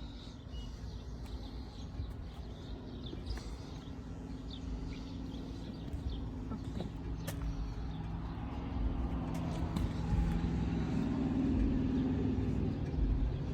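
A motor vehicle's engine running steadily with a low rumble, growing louder in the second half.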